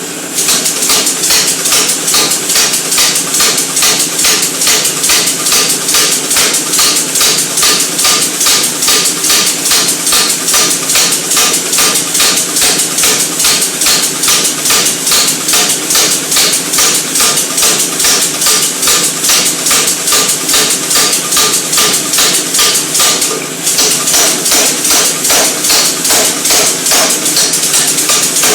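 Air-powered forging hammer pounding steadily with a fabricated combination spring die, about four blows a second, with a brief pause about 23 seconds in.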